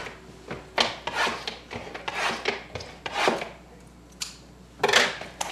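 Scissors cutting into sealed trading-card pack wrappers, with the wrappers rustling and scraping in the hands: a string of short, irregular scratchy snips and rubs, the loudest about five seconds in.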